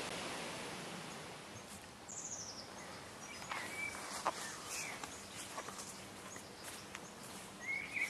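Garden ambience with small birds chirping now and then, including a quick descending trill about two seconds in and a few short high chirps later. A soft rustling hiss fades out over the first two seconds.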